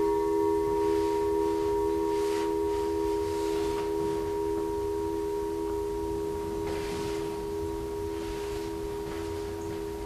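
Metal singing bowl, held in the palm, ringing out with a steady hum and several higher overtones, slowly fading.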